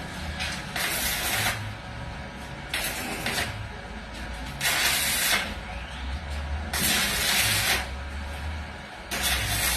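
Welding in short stitches: bursts of hissing arc, each under a second long, come about every two seconds, five times, over a low steady hum.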